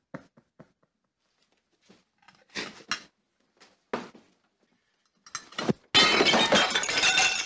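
A plate of pasta is thrown against a wall and shatters about six seconds in, with broken pieces clattering and tinkling for about a second and a half. A few short knocks come before it.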